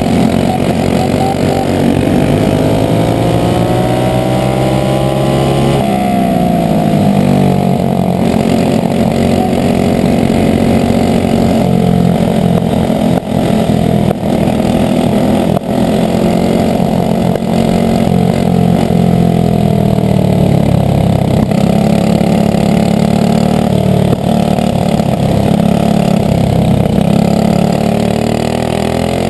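Methanol-burning Briggs & Stratton Animal four-stroke single-cylinder kart engine at racing speed, heard close up. It winds up steadily, drops off sharply about six seconds in, then climbs again, with further dips around twenty seconds in and near the end.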